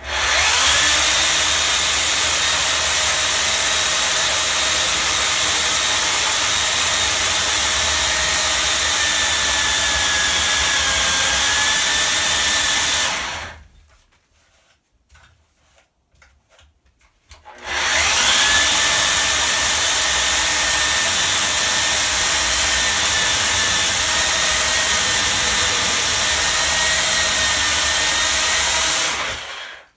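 Makita UC4051A electric chainsaw (14.5-amp motor, 16-inch bar) ripping a log along the grain, running at a steady whine. It runs for about 13 seconds, stops for about four seconds, then starts and cuts again for about 12 seconds before cutting off just before the end.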